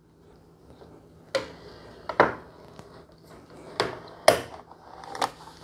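Oil filter cutter being turned around a steel spin-on oil filter can, its cutting wheel scoring the metal: a handful of separate sharp metallic clicks and knocks, about five in all, over a faint steady hum.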